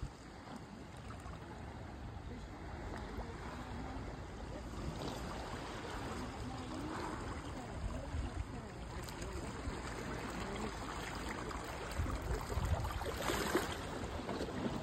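Seawater washing and trickling against the jetty rocks, a steady rushing with a few brief gusts and low bumps.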